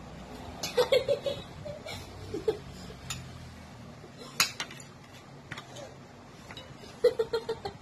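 A girl giggling in quick repeated pulses, about a second in and again near the end. In between, a few sharp clinks of metal spoons against glass bowls.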